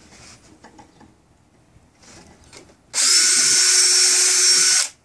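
Power drill running at a steady speed for about two seconds into wood, starting about three seconds in and stopping abruptly, after faint clicks of handling.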